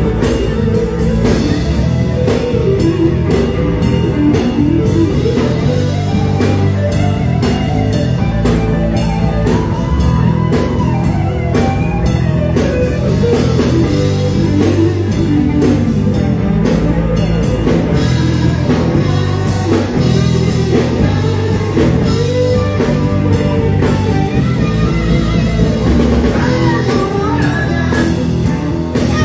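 Live rock band playing an instrumental passage: guitars over a steady drum kit beat, with no vocals.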